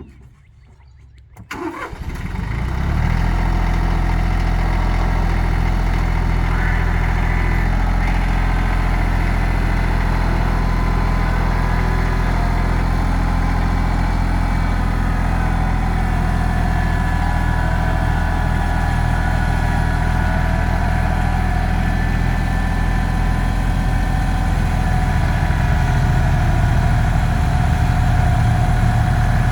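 Bad Boy 4025 compact tractor's diesel engine starting about a second and a half in, then running steadily under load, with a thin whine from the backhoe hydraulics.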